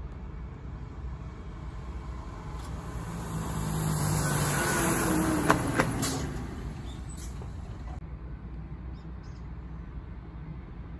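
A road vehicle passes close by on asphalt: tyre and engine noise swells, peaks with a slowly falling pitch, and fades, with two sharp clicks at the loudest moment. A steady low rumble runs underneath.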